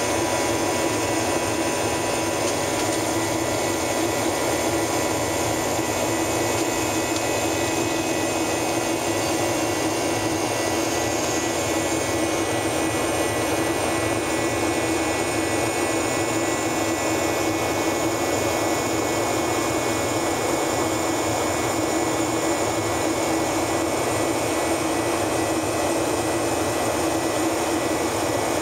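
Steady cabin noise of a Boeing 737-800 climbing after take-off, heard from the forward cabin: the drone of its CFM56-7B turbofan engines mixed with rushing airflow, with a few faint steady tones over it.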